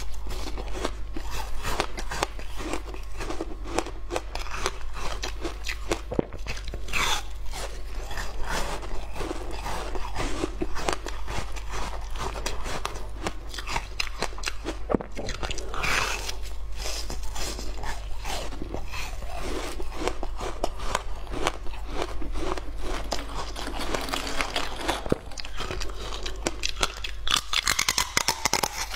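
Close-miked crunching, biting and chewing of frozen passion-fruit ice, a dense, irregular crackle of ice breaking between the teeth, over a steady low hum.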